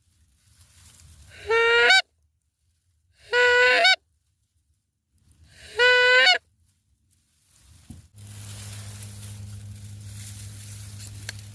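Three loud Canada goose honks about two seconds apart, each a half-second note that rises in pitch at its end. From about eight seconds in, a steady low hum with hiss takes over.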